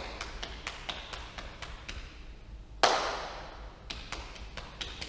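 Body percussion: a quick run of light hand pats on the thighs, about four a second, broken about three seconds in by one much louder slap.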